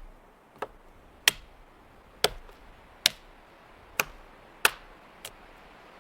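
Repeated sharp chopping strikes on wood, about seven blows roughly a second apart, the last one fainter.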